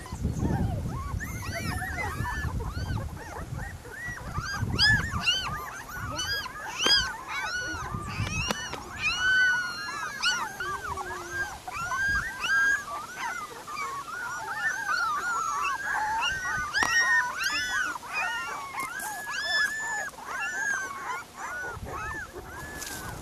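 A litter of 18-day-old Dalmatian puppies whimpering and squealing together: many short, high, rising-and-falling cries overlapping almost without pause.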